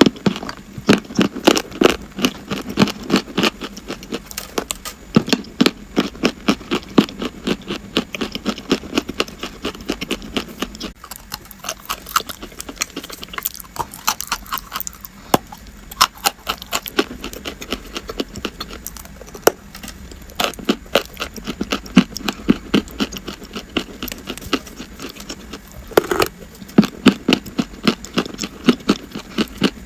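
Chalk being crunched and chewed close to the microphone: rapid crisp cracks, several a second, with a few short lulls.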